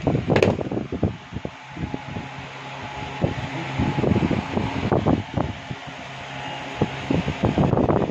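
A cardboard shipping box being slit open and handled: irregular scraping, tapping and rustling of the cardboard flaps and packing. Under it an electric standing fan hums steadily.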